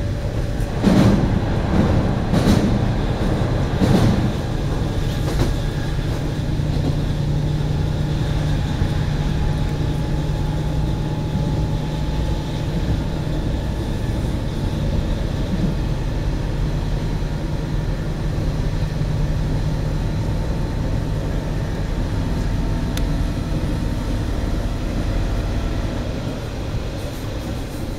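Onboard sound of a JNR KiHa 40 single-car diesel railcar under way: the diesel engine drones steadily over the wheel and track rumble. Three sharp knocks from the wheels on the track come in the first few seconds.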